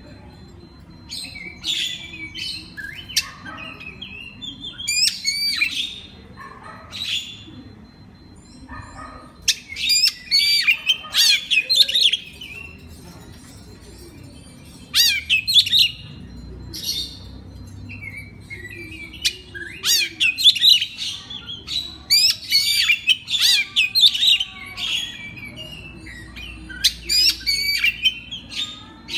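Oriental magpie-robin (kacer) singing: repeated bursts of quick whistled and chattering phrases with short pauses between them.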